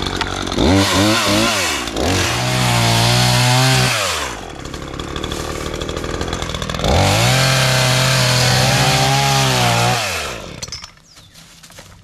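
Battery-powered chainsaw cutting through a dead stick in two runs. It spins up about a third of a second in, its pitch wavering and sagging as the chain bites the wood, and drops back around four seconds. It speeds up again near seven seconds for the second cut and stops near eleven seconds with no idle afterwards.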